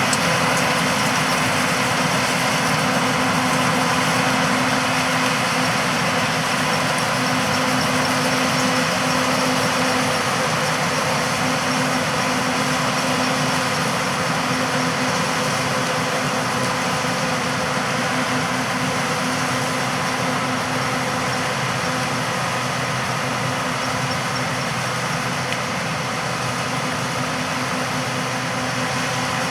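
Peanut combine running in the field: a steady machinery drone with a constant engine hum under a wash of threshing noise, easing off slightly in loudness through the second half.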